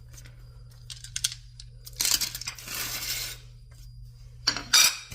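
Metal clinks and scraping as a wheel is handled and fitted onto the car's hub, with a loud sharp metallic clank near the end.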